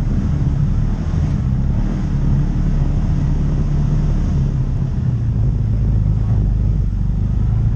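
Side-by-side (UTV) engine running steadily at low trail speed while driving over a dirt track, with a low rumble.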